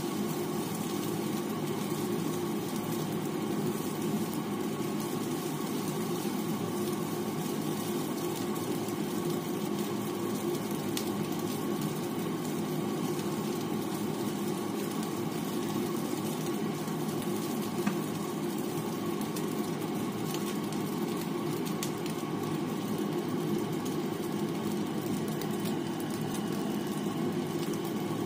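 Steady, even stovetop cooking noise from stir-frying fried rice in a nonstick pan, with a couple of faint spatula clicks.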